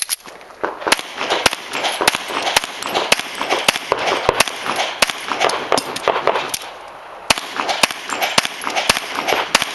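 A pistol fired rapidly in strings during a timed practical-shooting stage, about two dozen shots with a short pause about seven seconds in.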